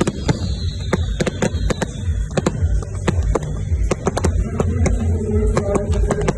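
Fireworks display: rapid, irregular bangs and crackles over a deep rumble, with a high whistle falling slightly in pitch over the first two seconds.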